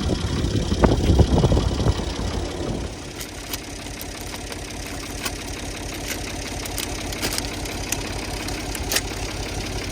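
Tractor engine running steadily, louder for the first three seconds or so and then settling to a lower, even rumble, with a few faint clicks.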